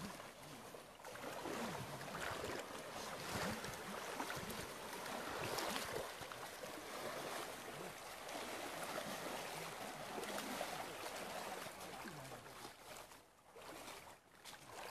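Shallow river water splashing and sloshing around elephants wading in it, over a steady rushing hiss; it dips quieter near the end.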